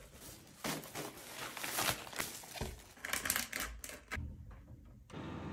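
Plastic rustling and crinkling as a plastic carrier bag and a clear plastic food container are handled and opened, in irregular bursts that die down about four seconds in.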